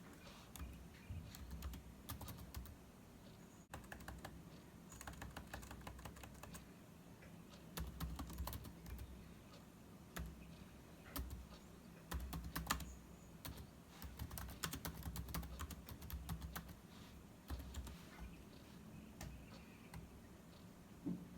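Computer keyboard typing: irregular runs of key clicks in bursts with short pauses between them, over a faint low hum.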